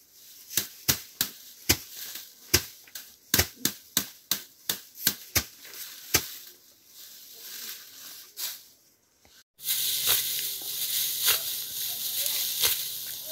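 A blade chopping at a bundle of dry grass stalks: about fifteen sharp strokes at two or three a second, stopping about six seconds in. Then dry wheat stalks rustle and snap as they are gathered and cut by hand, over a steady rushing noise.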